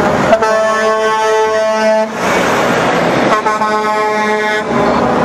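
Semi-truck air horn blown in two long blasts, each about a second and a half, over steady truck engine and road noise.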